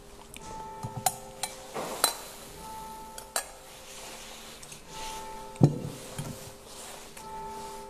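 Clinks and knocks of metal and glass communion vessels being handled and set down, with the loudest a heavier knock a little past halfway. Soft music with held notes plays underneath.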